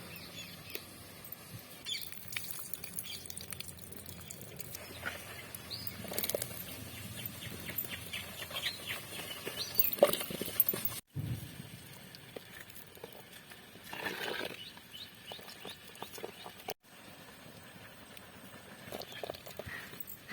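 Faint scattered clicks and taps over a quiet outdoor background, cut off abruptly twice.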